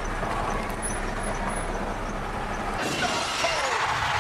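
Traffic and engine noise heard from inside a car waiting at an intersection, a steady rumble that brightens and gets a little louder about three seconds in.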